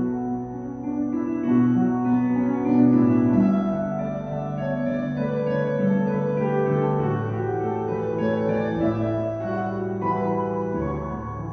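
Slow keyboard music with long held chords that change every second or two.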